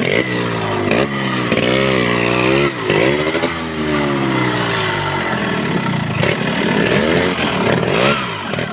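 Yamaha RX100's two-stroke single-cylinder engine revving hard, its revs rising and falling over and over as the bike is forced up a steep, rocky off-road climb.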